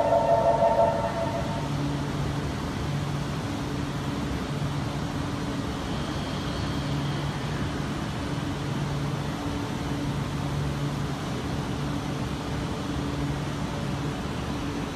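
Steady noise of an E4 Series double-decker Shinkansen at the platform as its two coupled units separate, with a low tone pulsing on and off about once a second. A loud chime of several tones ends about a second in.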